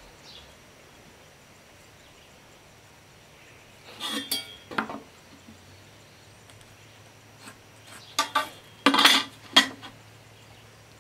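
Hand tools clinking and rattling against each other as they are handled, in two short bursts: one about four seconds in and a louder one around eight to ten seconds in.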